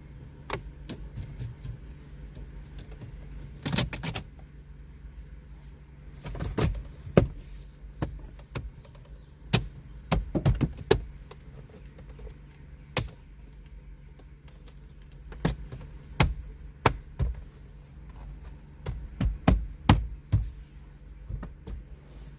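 Plastic dashboard trim being handled and pressed into its clips: a scatter of sharp clicks and knocks, some in quick runs of three or four, over a low steady hum.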